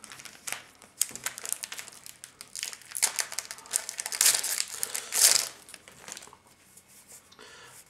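Foil booster-pack wrapper crinkling as it is handled, a run of rustling crackles that is loudest about four and five seconds in, then dies down to faint handling.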